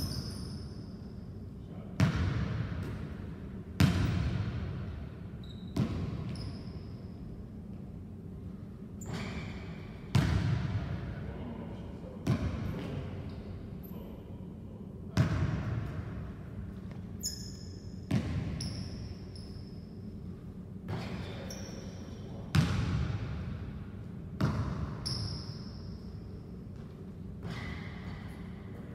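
Basketball bouncing on a hardwood gym floor: about a dozen separate thumps, one to three seconds apart, each ringing on in the hall's echo, with short high sneaker squeaks on the floor in between.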